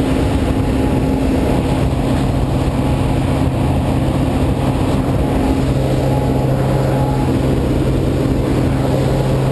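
Steady drone of a light aircraft's engine and propeller, heard from inside the cabin of a skydiving jump plane.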